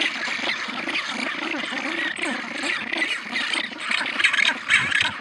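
A penguin colony calling: many penguins braying and squawking at once in a continuous, overlapping chorus.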